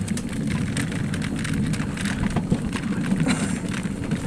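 Alpine coaster sled running down its rails: a steady low rumble of the wheels with a continuous patter of small clicks and rattles.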